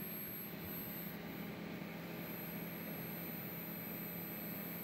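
Small electric cooling fan running steadily at a raised supply voltage of about 9 volts: an even, airy whir with a low steady hum.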